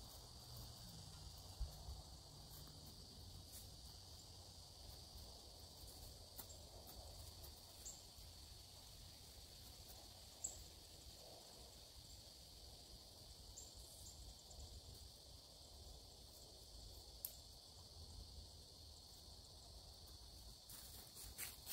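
Near silence: a faint, steady, high-pitched insect drone, with a few soft taps as a small hand tool digs into the soil.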